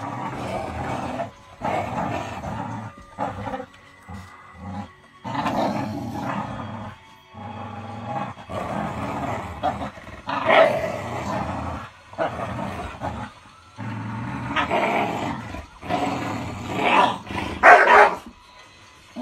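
Two dogs growling as they play tug-of-war with a rope, in repeated bouts of a second or two with short pauses, the loudest near the end.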